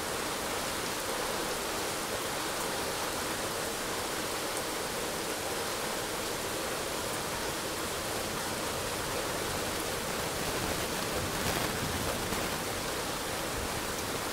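Heavy rain falling steadily, a dense even hiss. A low rumble rises about ten seconds in.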